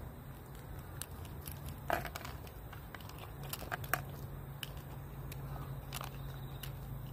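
Small dog eating dry food from a plastic bowl: scattered sharp crunches and clicks, the loudest about two and four seconds in, over a steady low hum.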